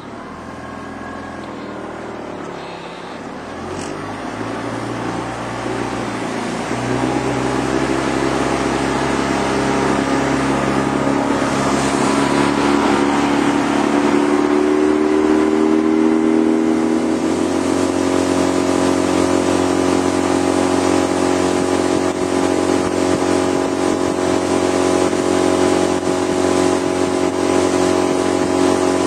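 Outboard motor on a small fishing boat throttling up, its pitch and loudness climbing over the first several seconds and then holding steady as the boat runs at speed.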